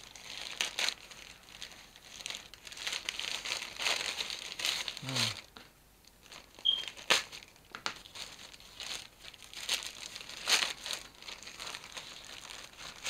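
Thin plastic courier mailer bag crinkling and tearing as it is slit with a utility knife and pulled open by hand, in irregular rustling bursts with a few sharp crackles.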